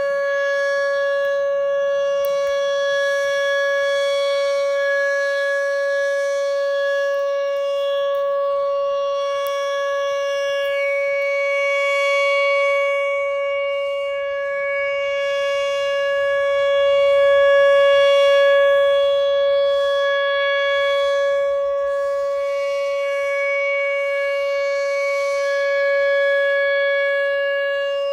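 Whelen 2806 electronic outdoor warning siren holding its steady alert tone at 560 Hz, a single unwavering pitch with strong overtones. The loudness swells and fades slowly every several seconds as the rotating siren head sweeps past. This is the 3-minute steady alert signal, sounded here as a routine test.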